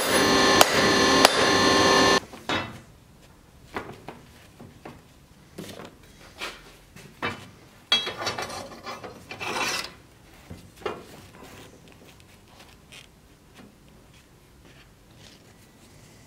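Hammer blows on a glowing steel bar on an anvil, about one every 0.6 s, each with a ringing metallic tone. About two seconds in they give way to quieter scraping and rubbing as a steel sword blade is handled and slid over paper, with a longer, louder scrape about eight to ten seconds in.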